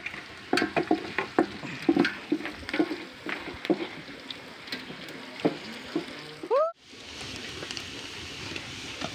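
Chopped onions sizzling as they brown in hot oil in an aluminium pot over a wood fire, with irregular knocks and scrapes of a spoon stirring in the pot. The sound cuts out for a moment about two-thirds of the way through.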